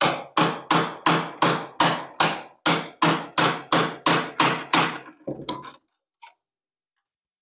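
A small 9-ounce hammer tapping a thin steel putty knife wedged under an old glued-on repair, working it in to pop the glue loose: a steady run of about fourteen sharp taps, close to three a second, then a few softer clicks about five seconds in.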